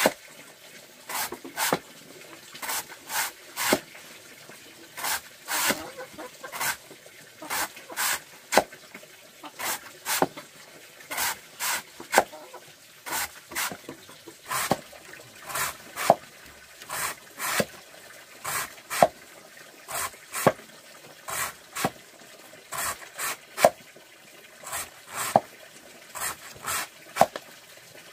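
A large knife slicing thin rounds off a thick, layered plant stalk against a wooden block: short, sharp cutting strokes, about one or two a second at an uneven pace, often in quick pairs.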